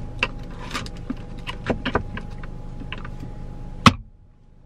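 Small items clicking and rattling in the plastic storage tray of a Mazda CX-5's centre console as they are put back, then the armrest lid shutting with one sharp clack near the end.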